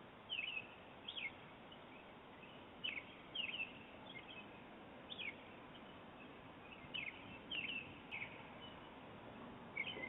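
A bird chirping outdoors: short, quick falling chirps, singly or in pairs, about once a second, over a steady faint hiss, heard through a doorbell camera's microphone.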